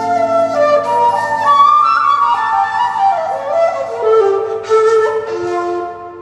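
A seven-hole 1.6-shaku shakuhachi playing a melody that steps downward note by note, with piano accompaniment.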